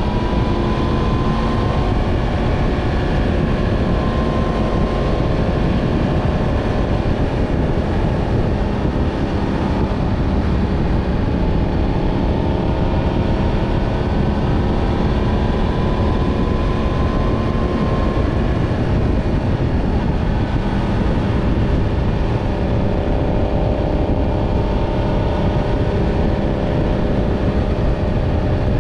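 Yamaha MT-10 motorcycle's inline-four engine running steadily on the move, under a heavy rush of wind. Its pitch creeps slowly upward for several seconds and drops back about two-thirds of the way in.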